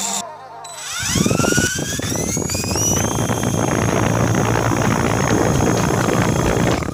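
Lego Power Functions Buggy motor spinning up with a rising whine for about two seconds, then running steadily under load with a loud, dense rattle, as it drives its arm down onto a scale in a torque test.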